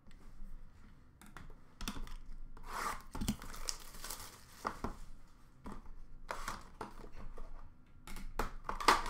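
A trading-card pack wrapper is torn open and crinkled in a run of irregular rips and rustles, with a sharper knock near the end.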